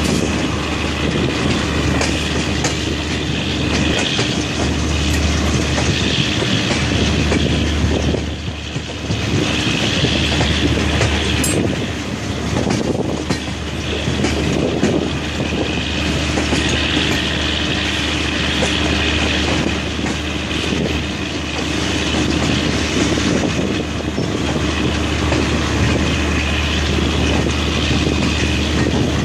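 Passenger train running along the track, heard from on board a coach: a steady rumble and low hum with wheels clattering over the rails.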